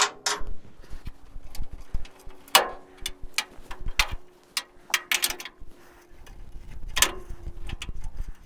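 Irregular metallic clicks and clinks of a wrench and small hardware, the nut and star washer of a brake line fitting, being worked and handled on the truck frame, a few of them louder. A faint steady hum runs underneath.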